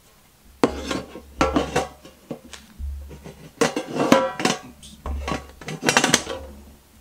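Topps Match Attax mega tins, small metal tins, being picked up, moved and set down on a table: irregular clattering and clinking with a metallic ring, and low bumps against the tabletop.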